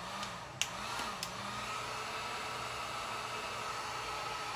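Electric heat gun blowing steadily, warming the double-sided tape on the mirror's lens backing. There are two light clicks in the first second or so.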